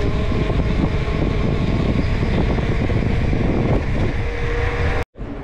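Heavy wind rumble on the action camera's microphone as the mountain bike rolls fast down a paved road. It cuts off abruptly near the end.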